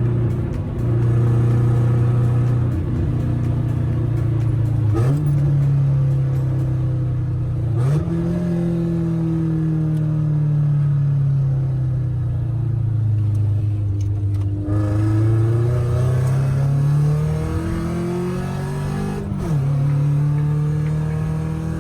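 1996 Acura Integra's four-cylinder engine running through a straight-pipe exhaust while driving: the engine note sinks slowly as the car slows, then climbs again under throttle, with sudden jumps in pitch at gear changes about 5, 8 and 19 seconds in.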